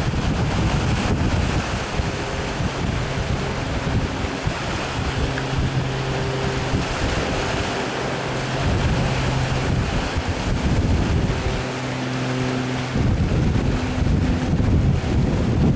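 Wind buffeting the microphone over the wash of the sea, with the faint low steady hum of a passing container ship's engine coming in after a couple of seconds and dropping out a few seconds before the end.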